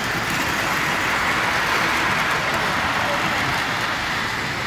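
Electric model train rolling along its metal track, a steady rushing whir that swells as the train passes closest, about two seconds in, then eases. The murmur of a crowd runs underneath.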